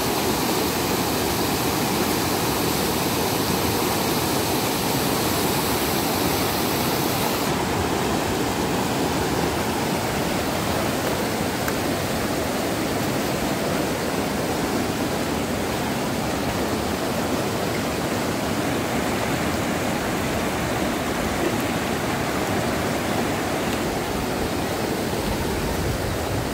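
Steady rushing of a swollen, muddy river churning through rapids. The sound turns a little duller after about seven seconds.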